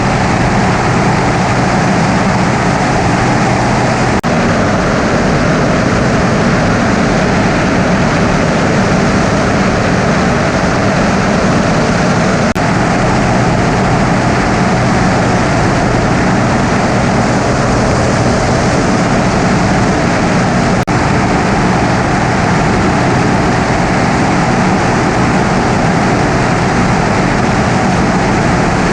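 Single-engine Cessna's piston engine and propeller running steadily, a loud constant drone.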